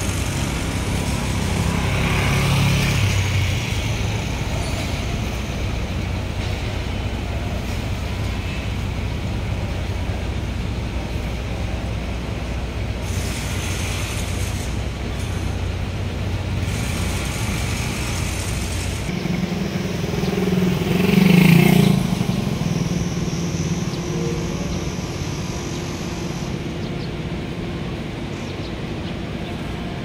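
Street traffic: motor vehicles running and passing on a city street, a steady hum of engines and tyres, with a louder vehicle engine passing close by about twenty seconds in.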